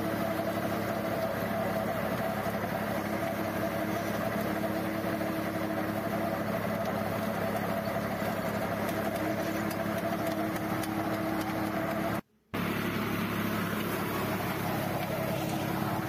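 Tractor engine running steadily under load, pulling a seed drill. The sound cuts out for a split second about twelve seconds in.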